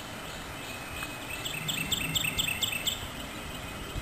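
A songbird sings a quick run of about seven sharp, evenly repeated chirps in the middle, over a steady low rumble that sounds like a commercial airliner passing overhead.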